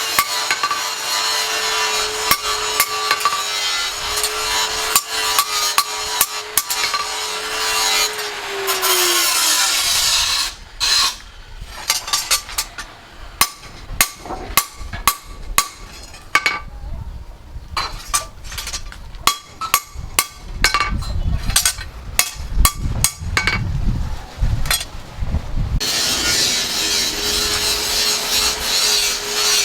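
An electric power tool grinds steel with a steady motor whine and a hiss, then winds down about nine seconds in. A long run of sharp hammer strikes follows. Near the end the tool starts grinding again.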